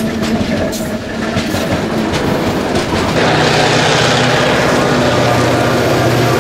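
Freight train passing close, its wheels clicking over the rail joints. About three seconds in the sound changes abruptly to the steady drone of a QR National G-class diesel locomotive's engine going by.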